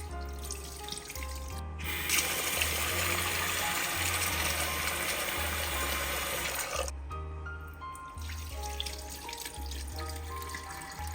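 Water running from a tap into a sink, starting about two seconds in and shutting off about five seconds later, over background music.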